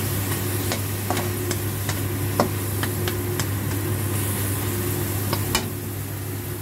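Chopped onion sizzling in oil in a wok while a spatula clicks and scrapes against the pan two or three times a second, pausing, then knocking twice more, the second knock the loudest, over a steady low hum.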